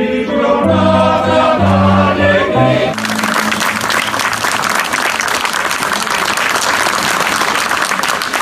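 A choir with piano sings the last notes of a song, then the audience breaks into steady applause about three seconds in.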